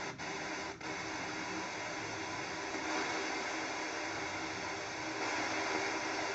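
Steady static hiss from a vintage Lenoxx Sound portable mini TV radio's speaker, with faint steady tones in it and a single small click just under a second in.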